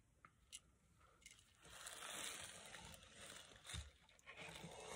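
Faint rustling and a few light clicks from a fishing jig and its silicone skirt being handled in the fingers.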